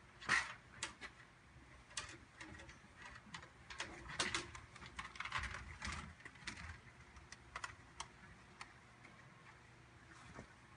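Steel fish tape being handled and fed into a hose end: irregular light clicks and taps, busier about midway.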